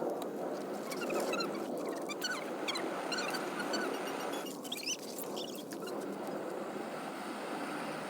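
Short high chirps, typical of small birds, scattered over a steady rushing background noise.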